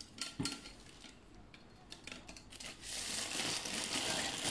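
Clear plastic bag crinkling and rustling as it is pulled off a metal light stand, loudest in the second half. A couple of light clicks sound just after the start.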